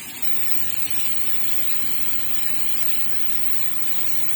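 Steady, even hiss of background noise with no distinct clicks, knocks or tones.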